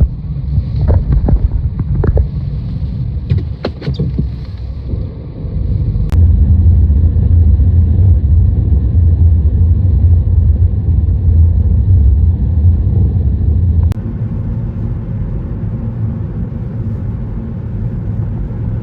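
A loud, steady low rumble, with a few sharp knocks in the first few seconds and sudden jumps in level about six and fourteen seconds in.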